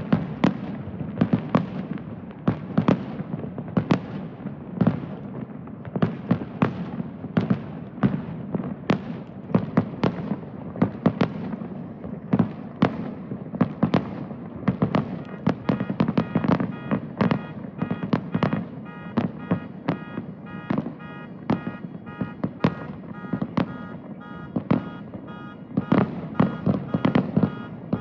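Aerial fireworks bursting in quick succession, several sharp bangs a second over a continuous low rumble from the display.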